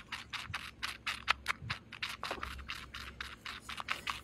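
Very young kitten suckling milk from a syringe teat: rapid, rhythmic wet sucking and smacking, about five sucks a second.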